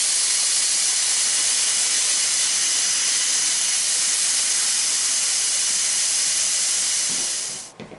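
A steady, loud hiss of rushing air, which cuts off suddenly near the end.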